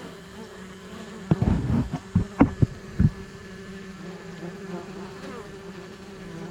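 Honey bees buzzing around a hive entrance, a steady hum. A few sharp knocks come about one and a half to three seconds in.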